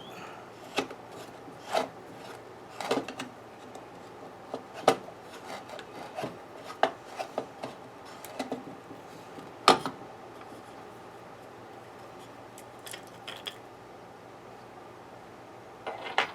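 Rear wooden handle (tote) of a #4 hand plane being unscrewed and worked off its cast-iron base: irregular small clicks, taps and scrapes of tool, screw and wood on metal, the sharpest about ten seconds in, thinning out after that.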